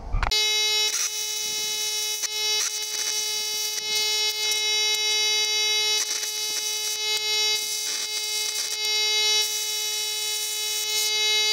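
Plasma cutter cutting quarter-inch steel plate: a steady humming tone with a hiss from the arc and scattered crackles.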